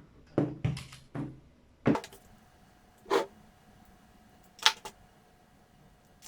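Handling noises: a series of about six separate clicks and knocks, spread over several seconds, as small objects are picked up and set down.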